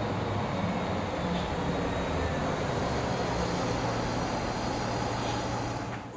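Steady vehicle traffic noise: an even rumble with a low hum and no breaks, stopping abruptly near the end.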